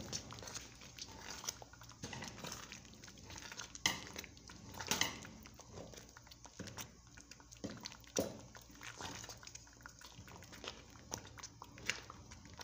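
Wooden spoon stirring and mashing thick, sticky rice in a granite-coated pot, with irregular wet squelches and knocks of the spoon against the pot; the sharpest knocks come about 4, 5 and 8 seconds in.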